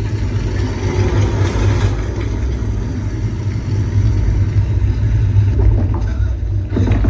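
Deep, steady bass rumble from sci-fi film sound design, with a noisy wash above it and a sharper hit right at the end.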